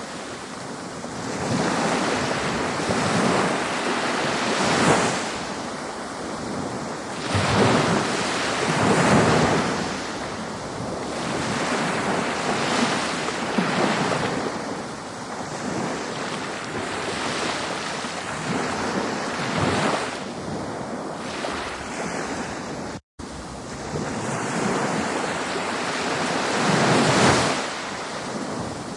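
Ocean surf, a continuous wash of breaking waves that swells and ebbs in irregular surges every few seconds. A split-second dropout to silence falls about two-thirds of the way through.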